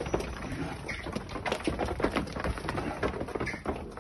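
Young heifer calves jostling in a crowded pen, hooves knocking and scraping irregularly on concrete over a steady low rumble.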